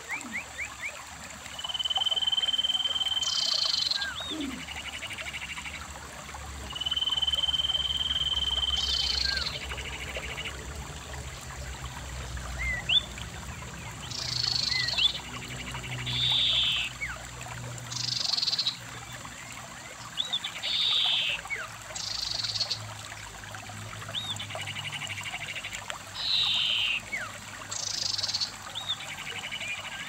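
Animal calls repeating over a trickling stream: a high steady whistle held about a second and a half, heard twice in the first ten seconds, short buzzy calls every couple of seconds, and brief rising chirps.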